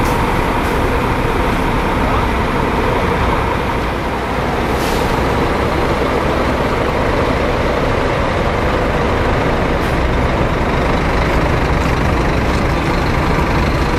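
Diesel engine of a Scania-chassis Marcopolo Paradiso 1800 DD G7 double-decker coach running with a loud, steady rumble. A brief hiss of air comes about five seconds in.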